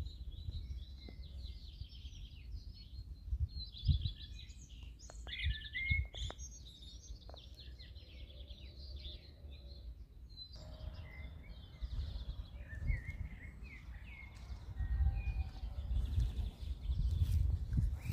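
Songbirds singing, with quick trills and chirps, over a steady low rumble. The song is densest about four to six seconds in.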